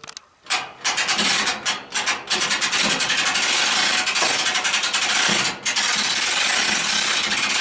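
Fast, continuous scraping and clicking of tool work, with a few brief breaks.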